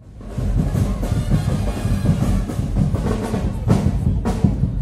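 Carnival parade band drumming: heavy percussion with bass drums, strong hits struck repeatedly, fading in at the start.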